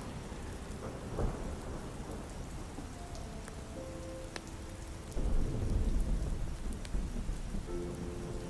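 Steady rain with a deep rumble of thunder that starts suddenly about five seconds in and fades slowly, after a sharper crack about a second in. Occasional small crackles and a few soft held musical tones sit under the rain.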